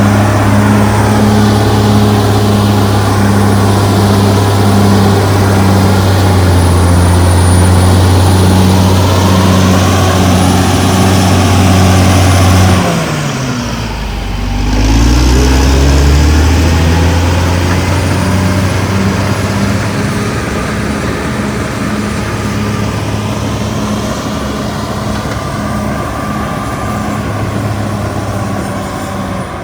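Caterpillar D6R XL bulldozer's diesel engine running hard with a steady deep hum. About halfway through it drops in pitch and loudness for a moment, then climbs back up and runs on.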